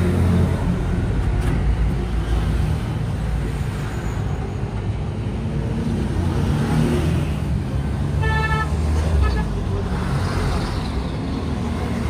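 Road traffic: vehicle engines running close by in a steady rumble. A short horn toot comes a little after two-thirds of the way through, and a briefer one follows about a second later.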